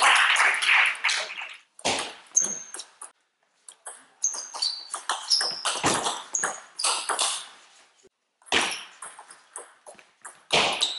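Table tennis rally: the celluloid-type ball clicking sharply off the bats and the table in irregular strings, with short high squeaks of shoes on the hall floor. The first second is taken up by a loud burst of noise.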